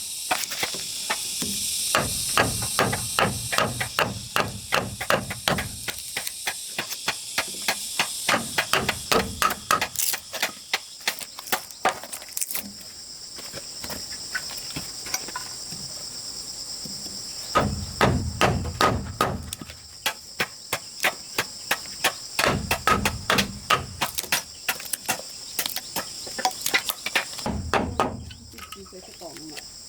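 A hand tool striking in runs of quick, even blows, about three a second, with short pauses between runs. Under it is a steady high insect drone that gets stronger partway through.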